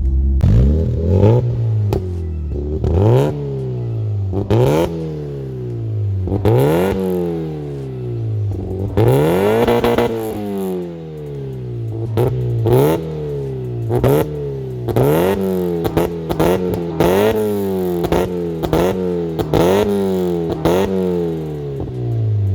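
Mazda MX-5 NB four-cylinder engine through a loud homemade exhaust, revved again and again in quick blips, each rising fast and dropping back more slowly, with sharp pops and crackles from the exhaust as the revs fall.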